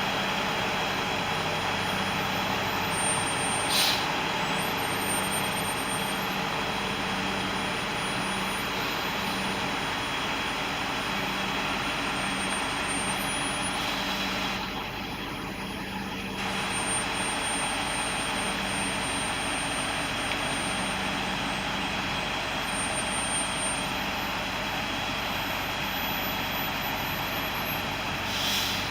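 Cat excavator's diesel engine running steadily, its speed oscillating rapidly up and down. A brief quieter dip comes about halfway through.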